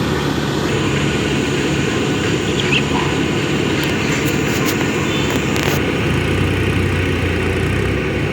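Diesel engine of a JCB 3DX backhoe loader running steadily while it loads mud into a tractor, with a few faint clicks between about four and six seconds in and a deeper engine drone joining about six seconds in.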